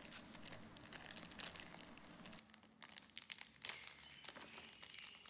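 Faint crinkling and rustling of a small plastic bag of screws being handled and opened, with a few light clicks.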